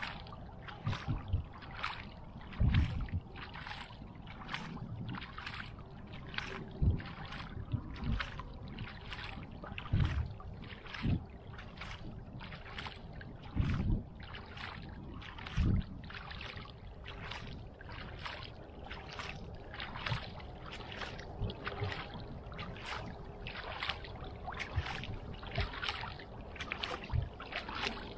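Kayak paddle strokes: the blades dip and swish through calm lake water in a steady, even rhythm, alternating sides, with occasional low knocks.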